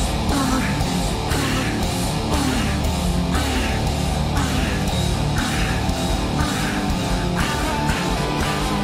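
Live rock band playing a hard rock song: distorted electric guitar over a steady drum beat, loud and continuous.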